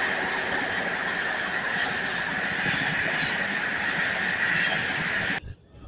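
Coaches of the Gatiman Express rolling past at speed: a steady rushing rumble with a steady high-pitched squeal over it. It cuts off abruptly near the end.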